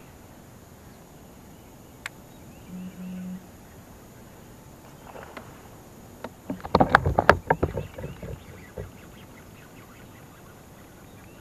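A fishing kayak's plastic hull and gear knocking and rattling in a burst of sharp clatter about seven seconds in, over a faint steady outdoor hiss.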